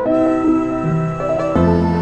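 Slow background music with held notes; a low bass note comes in about one and a half seconds in.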